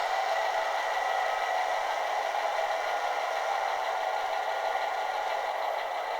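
Model locomotive sound decoder playing a Fairbanks-Morse diesel engine running steadily through a tiny speaker, thin and without bass, along with the rattle of the small model running on its track.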